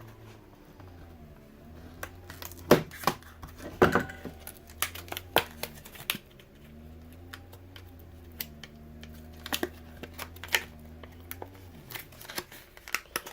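Scattered sharp clicks, taps and small scrapes of hands and a tool working at a ThinkPad T470s laptop's memory slot to open it, over a low hum that wavers in pitch now and then and stops near the end.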